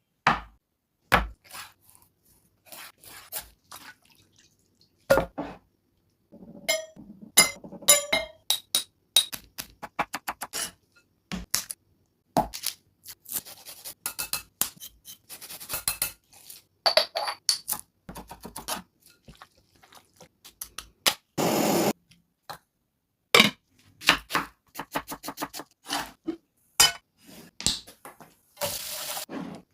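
Kitchen utensils and pots clinking and knocking in irregular bursts while a dish is cooked, with a brief hiss lasting about a second partway through.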